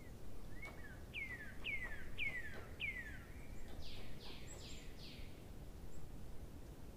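A bird singing: four clear whistled notes, each falling in pitch, about two a second, followed by four quicker, higher notes, over a low steady background noise.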